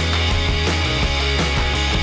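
Background rock music: heavy, guitar-driven, with a steady drum beat and bass.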